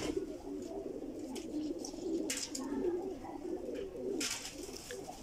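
A flock of domestic pigeons cooing, many low coos overlapping continuously. A couple of brief rustles come about two and four seconds in.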